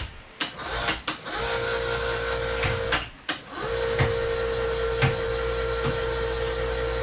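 Electric chain hoist motor whining steadily as it lifts a UTV, starting about a second and a half in, stopping for half a second around three seconds in, then running again. A few sharp knocks come in over it.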